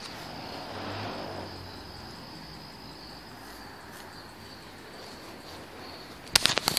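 Quiet background hiss with a faint, steady high-pitched whine, and a few sharp clicks near the end.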